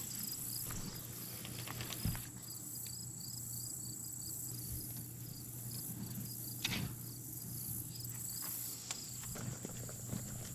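Insects chirping, a high chirp repeating about three times a second over a steady high buzz. Twice, about two seconds in and again past the middle, a short sharp knock stands out.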